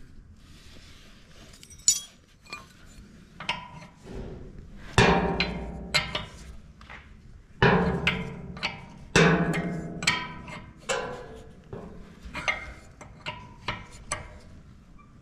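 A steel spanner working the nuts on the electric motor's mounting bolts, clinking and clanking irregularly against the bolts and the steel frame as the motor is tightened down to tension the drive belts. The strikes ring on briefly, the loudest about five, eight and nine seconds in.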